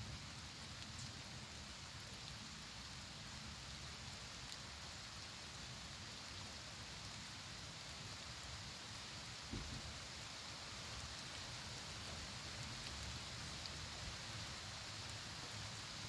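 Faint, steady outdoor hiss with no bird calls or tapping in it, and a soft low thump about nine and a half seconds in.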